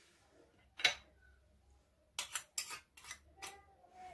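Metal spoon clinking against a small glass dish as salt is tipped and scraped out onto flour: one sharp click about a second in, then a quick run of about five clinks in the second half.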